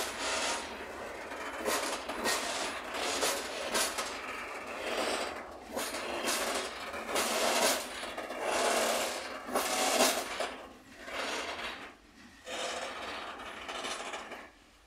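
Loaded freight train of open wagons rolling past, wheels and wagon bodies running on the rails with a rough rumbling noise that comes in irregular surges. It fades out near the end as the last wagons go by.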